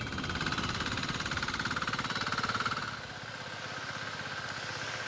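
Engine running with a fast, even knocking beat. About three seconds in the sound changes abruptly and its lower part drops away.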